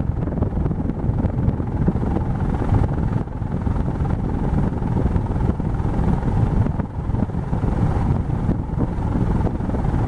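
Leslie Locke Summerset ceiling fan running, heard close up beneath its spinning blades: the downdraft buffets the microphone with a loud, uneven low rumble.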